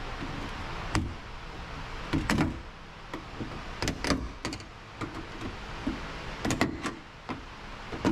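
Scattered short clicks and knocks as a trim piece is worked off around the door handle of a 2023 Subaru Crosstrek door by hand. A steady low background noise runs underneath.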